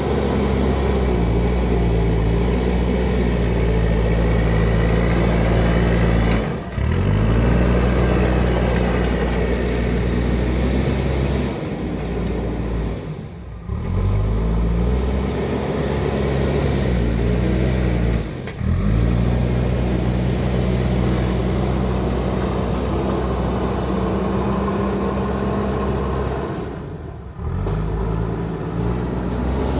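JCB backhoe loader's diesel engine running under load, a steady low note whose pitch shifts a little. It drops away briefly four times.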